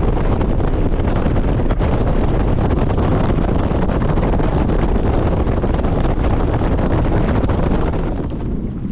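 Heavy wind rushing over the microphone on a boat running across the lake at speed. It eases off a little near the end.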